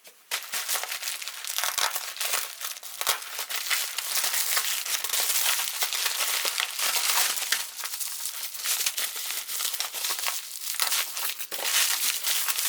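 A package's wrapping being crinkled and torn open by hand: continuous dense crackling, with a short lull about ten and a half seconds in.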